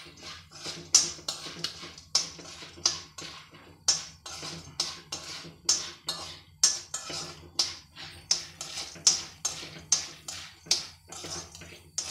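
A metal spoon stirring popcorn kernels in oil in a kadhai, clicking and scraping against the pan about twice a second.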